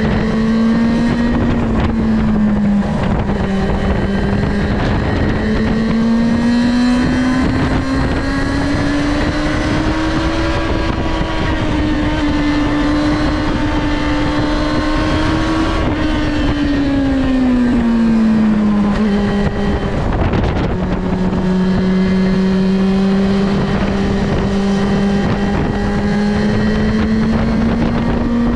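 Yamaha Fazer 6 inline-four engine on stock exhaust, riding under steady throttle: the revs climb gradually, hold, then drop about two-thirds of the way through and settle again. Wind rushes over the microphone throughout.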